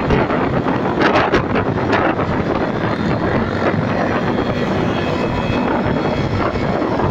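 Motorcycle riding at speed on a road: a steady engine drone under heavy wind rushing over the microphone.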